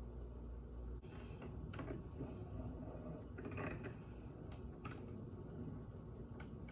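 Faint handling noises of small objects being worked by hand: a few light clicks and rustles, the sharpest about halfway through.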